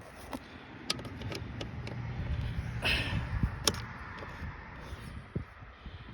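Scattered metal clicks and knocks with a short scrape about three seconds in, from tool work on a steering stem bolt that turns round in a full circle instead of loosening.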